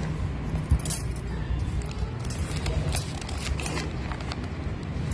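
Scattered light clicks and rustles from a paper notebook being handled, over a steady low background hum.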